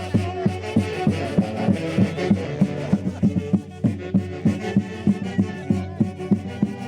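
Santiago folk music from Huancayo: a band's sustained melody over a steady drum beat of about three strokes a second.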